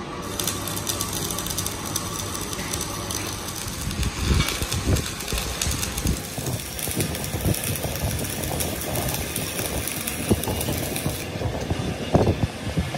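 Metal fabrication workshop noise: irregular clanks and knocks of metal parts over a steady high hiss, which drops away about eleven seconds in.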